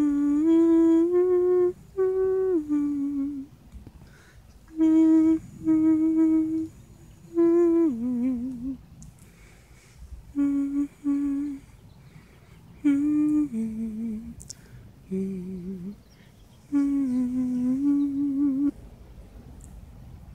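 A person humming a slow, wordless tune in short phrases of held notes that step up and down in pitch, with pauses between the phrases.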